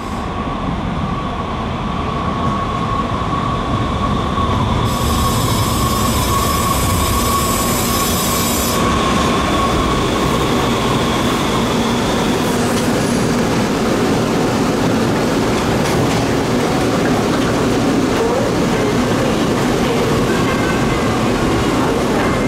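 Muni Metro light-rail train running through the underground station: a steady rumble with a high whine that fades out about halfway. A high-pitched squeal joins it for a few seconds about a quarter of the way in.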